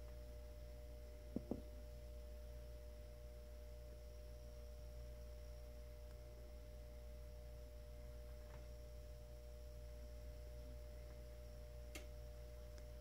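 Quiet room tone: a steady low hum with a faint, steady pure tone above it, broken by a few faint clicks, a double click about a second and a half in and a sharper one near the end.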